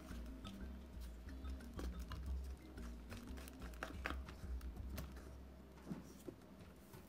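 Spatula stirring and folding foamy shaving-cream slime in a bowl: irregular, soft sticky clicks and taps as the foam squishes and the spatula touches the bowl.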